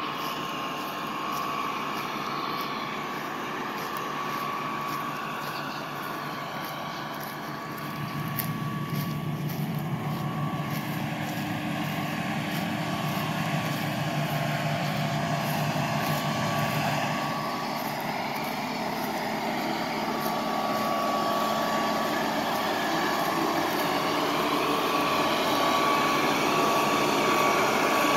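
Massey Ferguson WR9950 self-propelled windrower's diesel engine running steadily, with a thin steady whine above it, growing louder in the second half.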